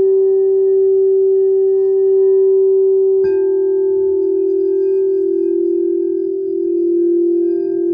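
Frosted crystal singing bowls played with mallets: one bowl rings with a steady pure tone, and about three seconds in a second bowl is struck. Its slightly lower tone joins the first, and the two beat against each other in a slow, wavering pulse.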